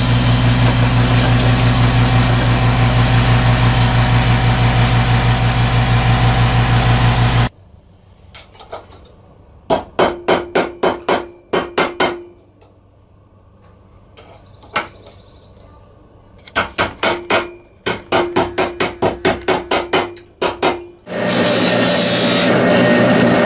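A hydraulic press's motor hums steadily for about the first seven seconds, then stops abruptly. A mallet then strikes a copper cuff bracelet on a steel ball stake in quick runs of blows, about five a second, each with a short metallic ring, with a lone blow in a pause. Near the end a polishing buffer's motor starts and runs steadily.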